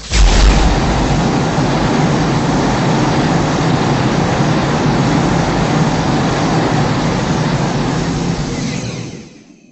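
A Godzilla sound effect: a sudden loud blast that goes straight into a dense, steady rushing noise with a heavy low end, lasting about nine seconds before fading out near the end.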